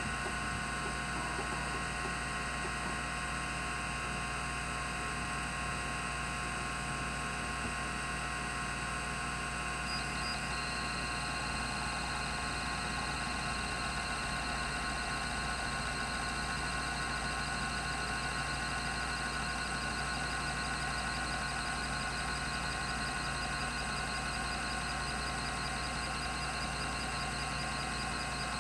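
Rodime RO352 10 MB 3.5-inch hard drive running, a steady whir with several fixed tones from its 3600 RPM spindle. About ten seconds in, a higher thin whine joins and stays.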